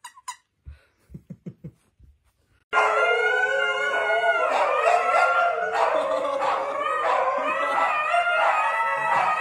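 A few quick squeaks from a plush squeaky toy right at the start. About three seconds in, several huskies begin howling together in a long chorus of overlapping howls rising and falling in pitch, which is the loudest thing here.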